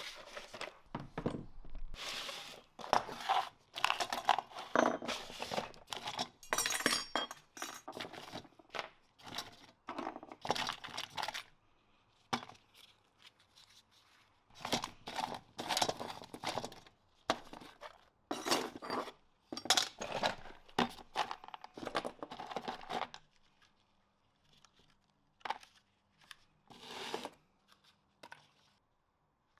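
Hands working on parts: irregular clinks, knocks and crinkling or tearing rustles, with fewer of them in the last few seconds.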